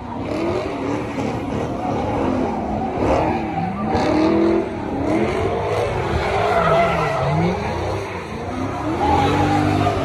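Cars doing donuts: engines revving up and down in repeated swells over a steady tyre screech from wheels spinning on the asphalt.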